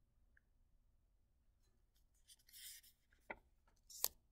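Near silence, then a short paper sliding sound a little past halfway and two sharp taps near the end: a stack of paper flashcards being handled as the top card is changed.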